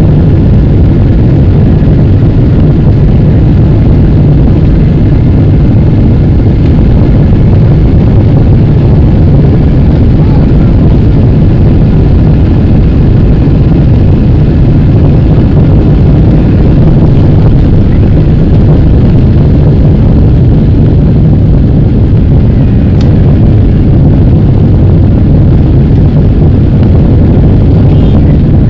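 Boeing 777 jet engines at takeoff thrust, heard from inside the passenger cabin as a loud, deep, steady roar through the takeoff roll and lift-off.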